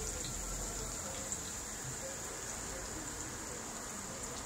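Battered food deep-frying in a large wok of hot oil: a steady sizzle with scattered small pops and crackles.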